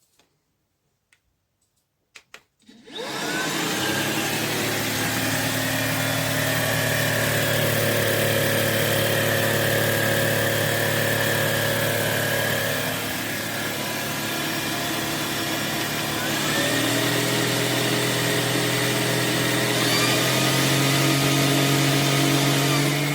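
Tineco A30S cordless stick vacuum switched on after a few clicks, its motor starting up and running with a steady whine. Its pitch shifts twice, getting a little louder each time.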